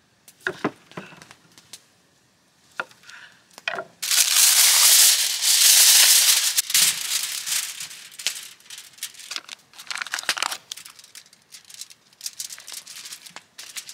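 A knife cutting through potatoes onto a wooden chopping board, a few sharp knocks. About four seconds in, aluminium foil is pulled off the roll, torn and crinkled loudly for several seconds. Near the end come softer foil rustles and light knife taps.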